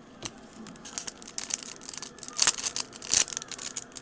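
Clear plastic wrapper being torn open and crumpled by hand: an irregular crackling rustle with a few sharper crackles in the second half.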